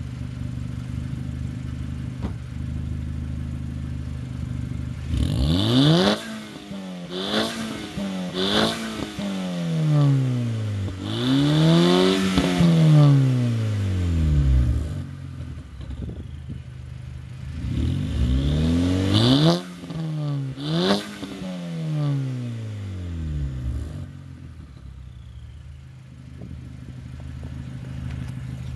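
VW GTI Mk V's turbocharged 2.0-litre four-cylinder, with a new downpipe and APR Stage 2 software, heard at the exhaust tips, idling and then revved in neutral. About five seconds in comes a sharp blip, then two quick ones and a slower rev that climbs and falls back. After a short idle come two more blips, and it settles back to a steady idle for the last few seconds.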